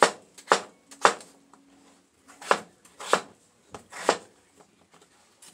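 Knife chopping russet potatoes on a cutting board: about six sharp knocks at uneven intervals, three in the first second, then a pause of about a second and a half before the rest.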